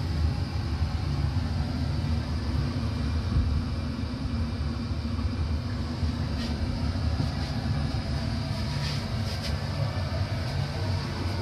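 Steady low rumble of a steam launch's machinery running, with a few faint clicks.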